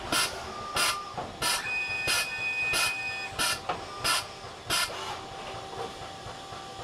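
Horkos NJ60 machining center running: a string of eight short hissing bursts, about one every two-thirds of a second, over a steady whine. A higher tone sounds for about a second and a half in the middle. The bursts stop about five seconds in while the whine carries on.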